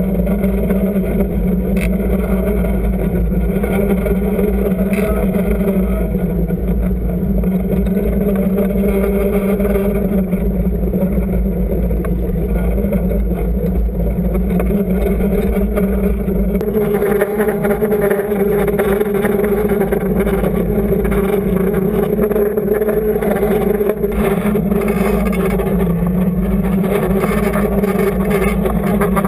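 Trolling boat's engine and propeller droning steadily, heard underwater through a camera housing as a muffled, even hum over low rumble.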